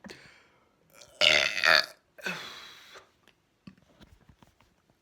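A person's big deliberate burp, loud and deep, lasting under a second and starting about a second in, followed at once by a second, quieter burp that trails off.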